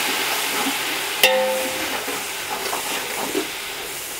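Hot oil sizzling as fried onions, coriander and mint leaves are stirred with a metal spatula in a large metal pot. About a second in, the spatula knocks against the pot with a short ringing clang.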